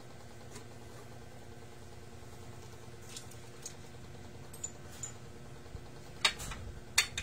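Light clicks and ticks from hands working at a scooter's rear wheel and hub, with a few sharper metallic clicks near the end, over a steady low hum.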